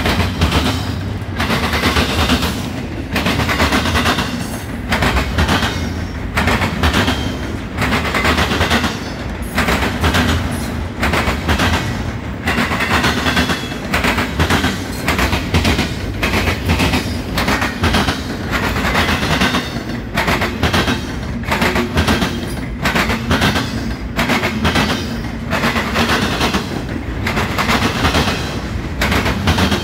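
Double-stack intermodal well cars rolling past, their steel wheels clattering over the rails in a continuous run of sharp clicks and bangs above a steady low rumble.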